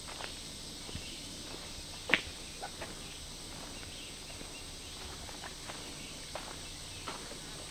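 Footsteps on a dirt forest trail: irregular soft crunches of leaf litter and twigs underfoot, with one sharp snap about two seconds in.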